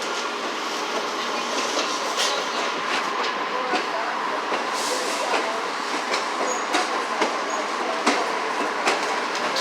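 Excursion train rolling slowly through a rail yard, heard from aboard: a steady rumble of wheels on track with irregular sharp clicks as the wheels cross rail joints and switches.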